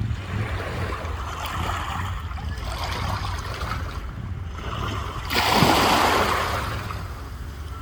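Sea waves on the shore, with one wave breaking a little past halfway through and washing back over the next two seconds, over a steady low rumble.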